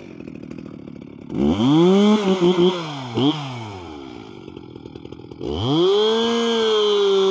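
Stihl MS 361 single-cylinder two-stroke chainsaw catching on a pull of the starter cord and idling, then revved up and down a few times. It rises again and is held at a steady full throttle as the bar goes to the log, its chain blunted from cutting into dirt.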